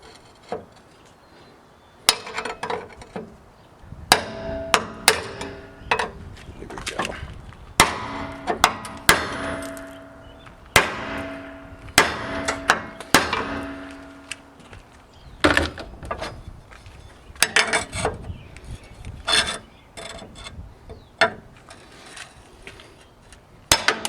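Hammer blows on the steel frame of a 1997 Ford F350, driving out an old drilled rivet: sharp, irregularly spaced strikes, several with a metallic ring.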